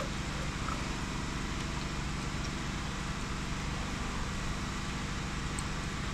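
An engine running steadily at idle, a constant low hum with no change in speed.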